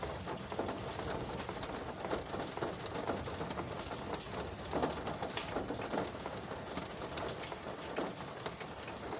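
Rain falling on a car's roof and glass, heard from inside the car: a steady dense patter of many drops, with louder single drop hits standing out here and there.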